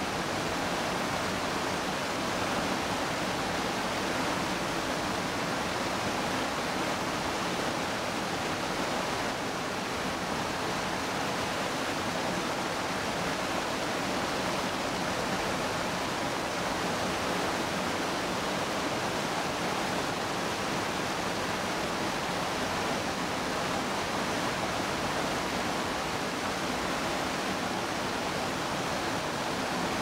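Small waterfall pouring into a stream beneath snow and ice: a steady, even rush of churning water with no change in level.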